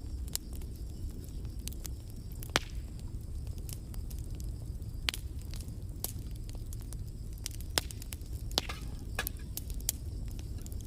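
Campfire crackling: scattered sharp snaps and pops, one or two a second, over a steady low rumble.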